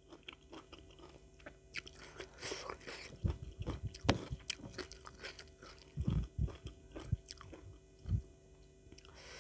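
Close-miked chewing and crunching of a hand-fed mouthful of rice with raw leafy greens and chili sambal, with scattered small wet clicks and a few low thumps.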